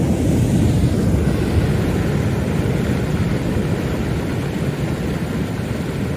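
Flood water rushing down a debris-choked wash, a loud steady low rumble with no let-up.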